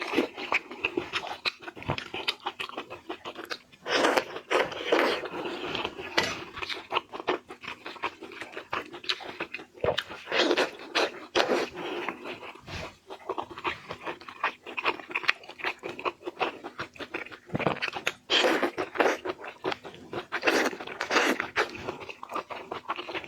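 Close-miked eating sounds: a person chewing seafood, with irregular wet clicks and smacks and louder bites every few seconds.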